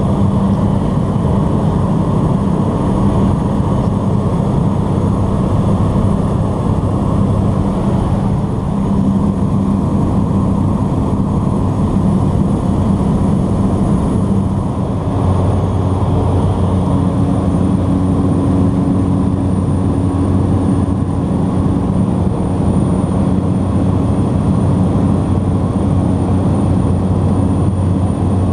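De Havilland DHC-3 Otter floatplane's engine and propeller droning steadily in flight, heard inside the cabin, with a faint high whine over the low drone. The tone shifts slightly about halfway through.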